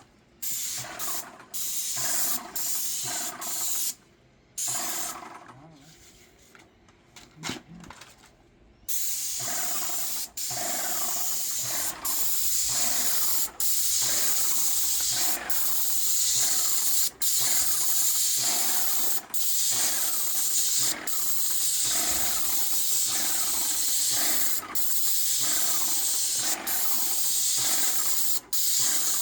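Graco Magnum X5 airless paint sprayer spraying paint with a high, steady hiss. It comes in short bursts with pauses for the first few seconds, goes quieter for a few seconds, then runs almost continuously from about nine seconds in, cutting off briefly every second or two as the gun trigger is released between passes.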